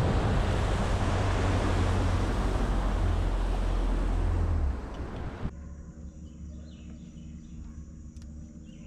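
Bass boat running fast on the river: wind on the microphone and rushing water over a low engine rumble. The rumble drops off about four and a half seconds in and gives way to a much quieter river-bank background with a faint steady high hum.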